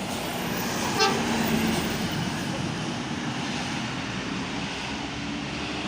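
A bus passing with engine and road noise, with a short horn toot about a second in.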